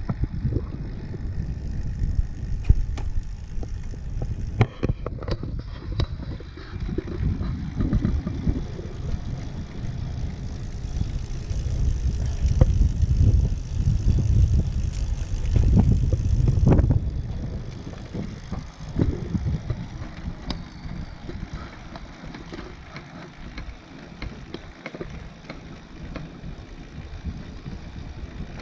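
Riding noise from a recumbent cycle on a trail: low wind rumble on the microphone mixed with tyre noise, loudest about twelve to seventeen seconds in, with a few sharp clicks about five seconds in.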